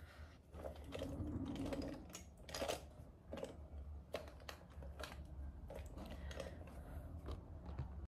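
Irregular light clicks and taps of small objects being handled, over a steady low hum.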